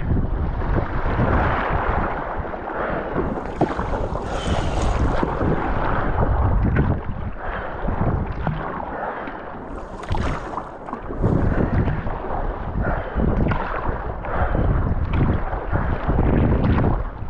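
Wind buffeting the microphone over the rush and splash of choppy sea water against a Fenn Bluefin S surfski being paddled downwind, with brighter splashes about four seconds in and again about ten seconds in.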